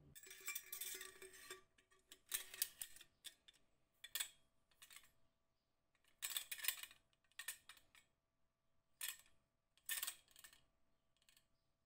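Steel parts of a restored combination hatchet-saw-chisel scraping and clicking as it is handled: a longer scrape at first, then short rattles and clicks every second or two.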